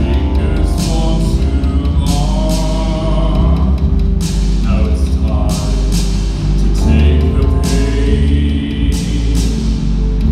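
Live music played loud: a steady, heavy low end with a voice singing over it, and several sharp crashing hits.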